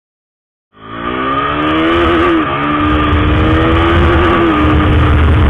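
KTM RC 390's single-cylinder engine pulling the bike along, its pitch climbing and dipping briefly about two and a half seconds in and again near the end, under heavy wind rumble on the handlebar-mounted microphone. The sound starts suddenly about three-quarters of a second in.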